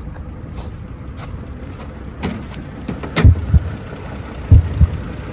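Chevy Trailblazer engine idling; about three seconds in, loud low thumps start, in pairs about every second and a half. This is the engine noise the owner puts down to low oil or a bad lifter.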